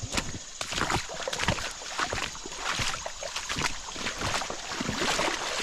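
Footsteps wading through a shallow creek: irregular splashes and sloshing water, with quick uneven steps.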